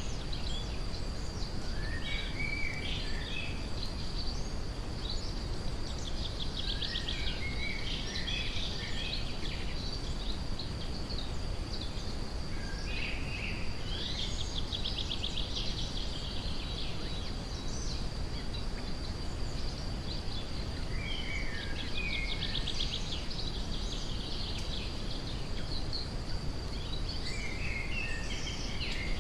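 Forest birds singing short phrases and trills every few seconds over a steady, deep brown-noise hiss, with a constant thin high-pitched tone throughout.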